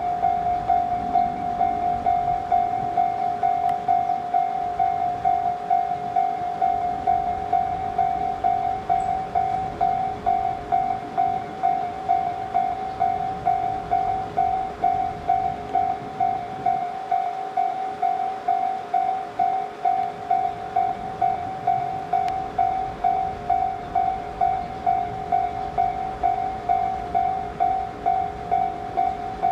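Japanese level-crossing warning bell ringing steadily, about two strikes a second, each a single high 'kan' tone: the crossing's alarm signalling that a train is approaching.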